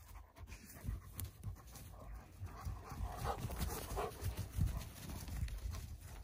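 Central Asian Shepherd (Alabai) puppies panting as they wrestle and chase each other, with scuffling and irregular low thumps.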